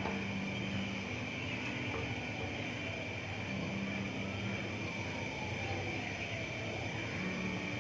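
Steady kitchen hum and rush, with a constant high whine over it, as oil heats on a stovetop tawa with the flame turned up.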